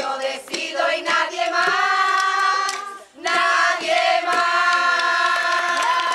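A group of women singing together in chorus, in two long held phrases with a brief break about three seconds in.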